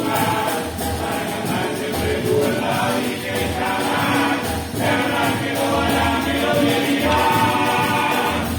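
Live music: several voices singing together over instruments, with a low beat about once a second.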